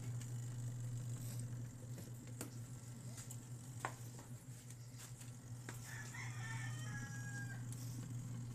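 A rooster crowing once, a little past the middle, over a steady low hum, with a few scattered clicks.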